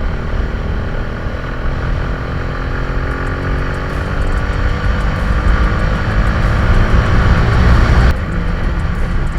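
Motorcycle engine pulling under acceleration, its note climbing steadily for several seconds. About eight seconds in, the throttle is closed and the sound drops off sharply.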